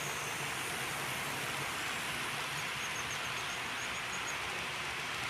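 HO scale model freight trains rolling past on the track: a steady hiss of small metal wheels running on the rails, with a faint low hum and a short row of faint high ticks midway.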